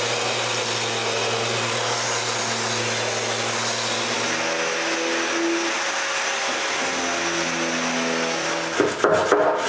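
Electric sander running on hardwood edges, with a dust-extractor hose attached, making a steady whirring hiss. About halfway through, the pitch of its hum shifts. A few knocks come near the end.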